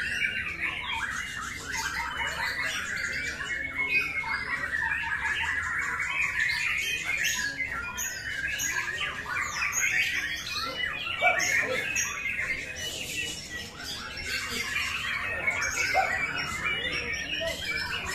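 White-rumped shama (murai batu) singing a long, dense run of rapidly changing notes without a break, the full, varied song that Indonesian songbird keepers prize in a contest bird.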